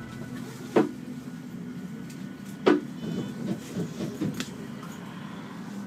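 Cabin noise inside a Mercedes-Benz O405NE trolleybus: a steady low hum, two loud clunks about two seconds apart, then a run of lighter knocks and rattles.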